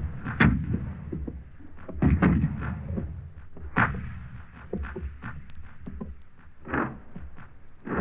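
Battle sound effect: scattered gunshots and heavier blasts with rumbling tails, the loudest about half a second, two seconds and four seconds in, with smaller shots in between over a continuous low rumble.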